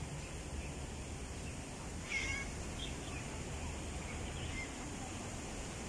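A short animal call about two seconds in, followed by a few fainter chirps, over a steady low background hum.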